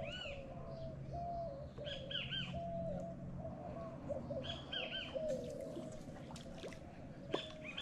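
Wild birds calling: a steady run of short, low notes, with pairs of high, arching chirps several times over it. A low steady hum underneath stops a little over halfway through.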